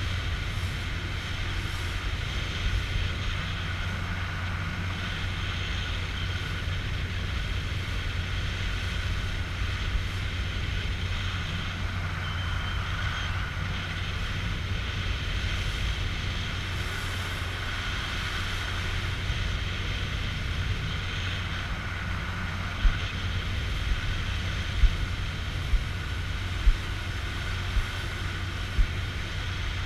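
Motorboat engine running at a steady speed underway, with wind on the microphone. Near the end, several short knocks come about once a second.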